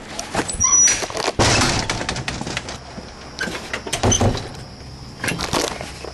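A dog whimpering in a few short high-pitched cries as it is left behind, amid knocks and rustling from a door being opened and passed through and a handheld camera being jostled.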